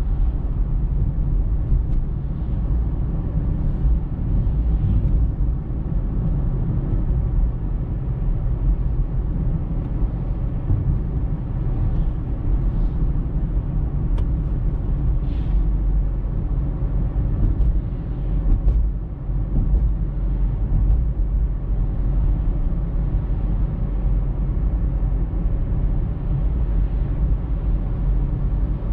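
Steady low rumble of a car being driven: engine and tyre road noise heard from inside the cabin, with a few faint brief sounds in the middle.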